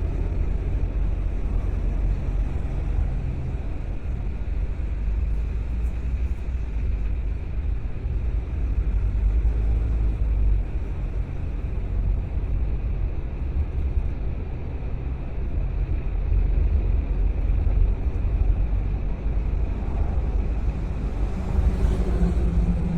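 Car driving, a steady low rumble of engine and road noise; a slightly higher hum joins near the end.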